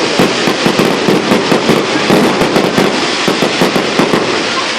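Fireworks going off in a loud, rapid, unbroken string of bangs and crackles.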